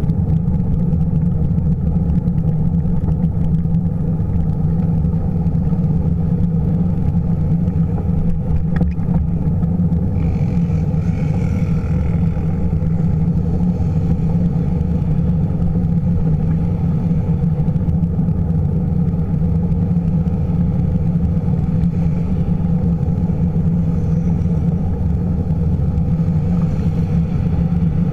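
Steady low rumble of wind buffeting the microphone of a camera riding on a moving bicycle, with road traffic alongside and a faint higher hiss joining about ten seconds in.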